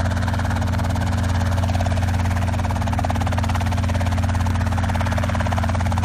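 Small two-bladed piston helicopter hovering low over the ground: a steady engine drone with a rapid, even beat from the main rotor.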